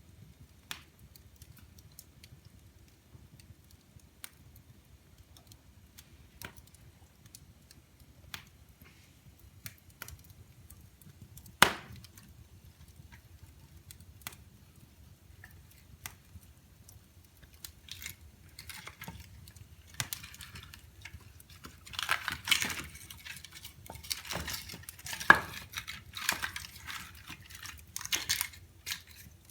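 Wood fire crackling in a fireplace: scattered sharp pops, with one loud snap about 12 seconds in. From about 18 seconds on the crackling grows denser and louder, with clusters of pops and knocks.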